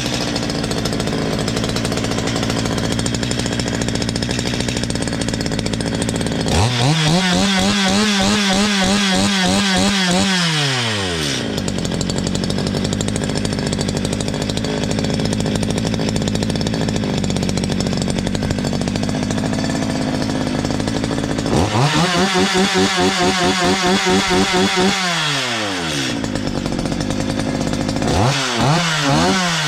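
Stihl MS 230 two-stroke chainsaw engine idling, revved up to high speed twice for about four seconds each, then given quick throttle blips near the end. It is being run to find a strange noise the owner reported; the mechanic hears only a slight rattle at the muffler, as if a small part were loose.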